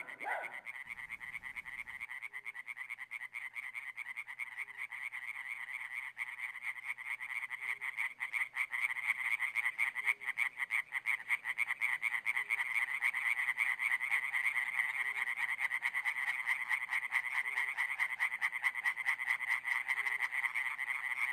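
Night chorus of frogs: a dense, fast pulsing trill that grows louder about eight seconds in, with a faint low note repeating every two seconds or so.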